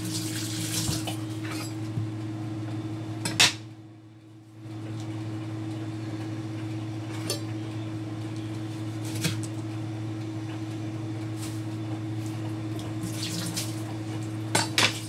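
Scattered clinks and knocks of kitchen utensils and dishes on a counter and wooden cutting board while food is being prepared by hand, the sharpest about three seconds in and a quick cluster near the end, over a steady low hum.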